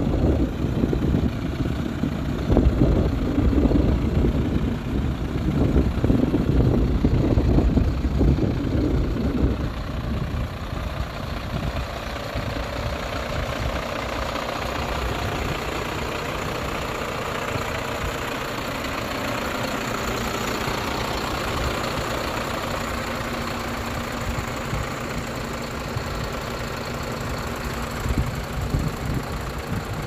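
Iveco Trakker 360 concrete mixer truck's diesel engine idling steadily. Wind buffets the microphone for roughly the first ten seconds.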